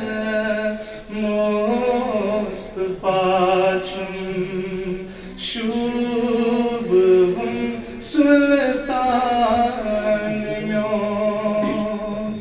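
A young man's solo voice singing unaccompanied into a microphone, in long held notes that step from pitch to pitch, with short breaths between phrases.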